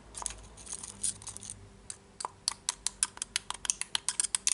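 Light metal-on-metal scraping, then a rapid run of sharp clicks, several a second, in the second half as a ball bearing is worked into place in a rotary hammer's housing.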